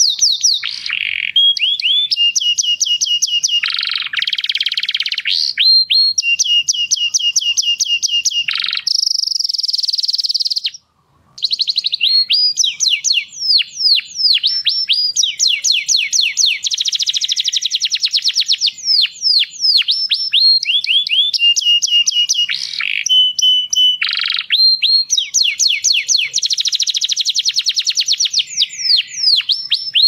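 Male domestic canary singing a continuous song: long trills of rapidly repeated down-sweeping notes, alternating with steadier low rolling trills. The song breaks off briefly about eleven seconds in, then resumes.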